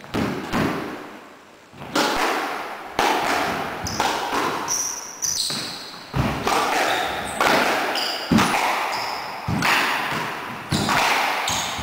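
Squash rally: a quick run of sharp cracks as the ball strikes rackets, walls and the wooden floor, each echoing in the enclosed court, with short high squeaks of shoes on the floor between them. The hits come thick and fast from about two seconds in.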